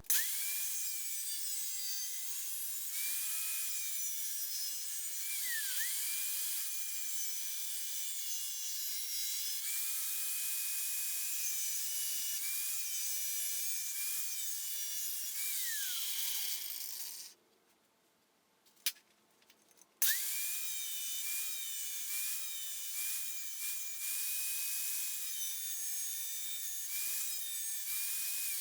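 Grinder with a flap disc grinding a coped notch into a metal pipe: a steady high whine with grinding noise. The pitch dips briefly about six seconds in. It winds down and stops a little after halfway, then spins back up about three seconds later and winds down again at the end.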